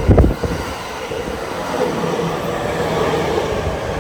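Electric train running at a station platform: a steady rumble with a faint held hum, and a couple of low thumps just after the start.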